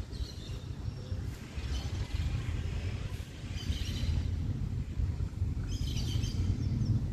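Birds chirping in four short bouts over a steady low rumble of outdoor street noise.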